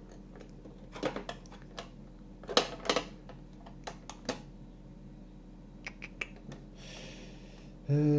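Hard plastic model-car parts clicking and tapping as the roof frame and tinted panels are handled and pressed together, a scattered run of sharp clicks, the loudest pair about three seconds in.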